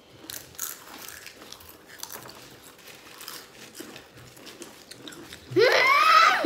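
Crunching and chewing of Doritos Flamin' Hot tortilla chips, with crisp crunches scattered through. Near the end, a loud, high-pitched wordless vocal cry that rises and then falls in pitch, lasting about a second.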